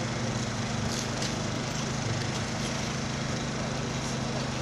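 An engine running steadily, giving a low even hum, over the faint background noise of an outdoor crowd.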